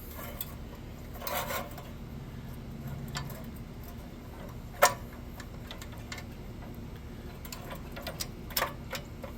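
Scattered small metal clicks and clinks of tools and engine parts being handled while the recoil pull-start is refitted to a small go-kart engine, with one sharper click about five seconds in, over a low steady hum.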